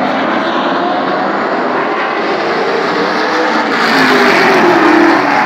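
A pack of late model stock cars racing past on the short track, several engines running together. The sound grows louder about four seconds in as cars pass close, and their engine pitch drops as they go by.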